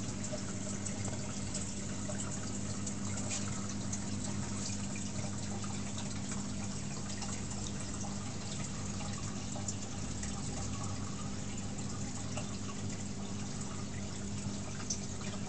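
Water circulating in a nano cube reef aquarium, trickling and dripping steadily, over a steady low hum.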